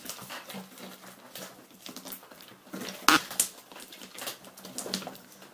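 Homemade borax slime being kneaded and pressed by hand, giving off irregular wet clicks and pops, the loudest about three seconds in.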